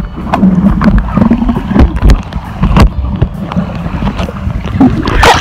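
Muffled underwater sound of a swimming pool picked up by a camera held under the water: a dull low rumble of moving water with frequent knocks and bubbling.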